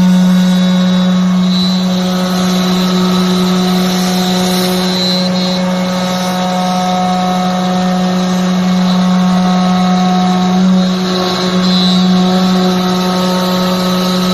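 CNC router spindle running and cutting a design into wood, with a steady, loud, high hum that holds one constant pitch throughout.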